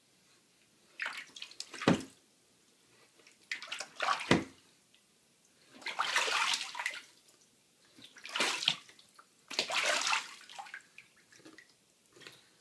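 A Canada goose bathing in a bathtub, splashing the water in about six bursts a second or two apart. Two of the splashes end in a sharp slap.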